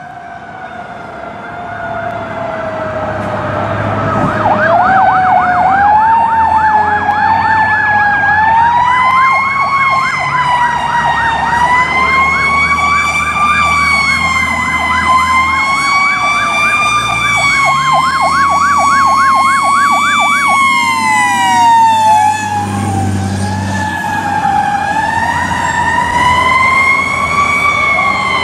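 Fire truck sirens on an emergency response: a slow siren wail rising and falling throughout, joined from about five seconds in by a rapid yelp that cuts off at about twenty seconds. A truck engine is heard revving up about two-thirds of the way through.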